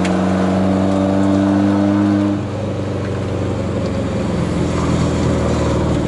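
Volkswagen Scirocco Mk1 GT's four-cylinder petrol engine heard from inside the cabin, pulling with the revs creeping up, then the throttle lifted about two seconds in and the note drops to a lower, steady running sound as the car rolls slowly.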